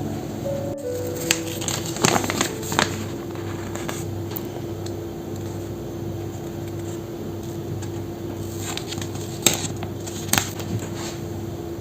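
A few scattered clicks and light knocks of things being handled, over a steady hum.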